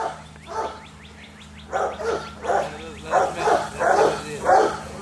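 Rottweilers barking, a few barks at first, then a quick run of short, rough barks about two a second from about two seconds in, as the dogs are worked up over chickens hung on their line.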